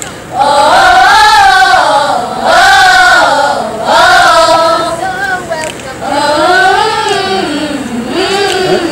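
A group of schoolgirls singing together as a choir, in phrases of a second or two with short breaths between them; a lower line joins about six seconds in.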